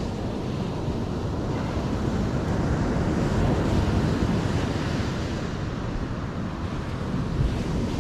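Surf washing on the beach, with wind rumbling on the microphone.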